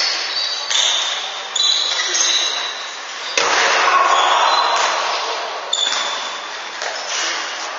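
Handball game sounds in a large sports hall: the ball bouncing, shoes squeaking on the wooden court and players shouting, all echoing. The loudest stretch comes about three and a half seconds in.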